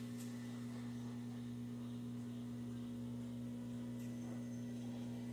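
Steady low electrical hum, one even drone with an overtone.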